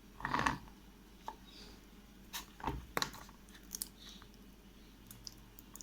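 Light handling sounds of set jelly candy being eased out of its moulds: a short soft sound about half a second in, then a few scattered clicks and taps.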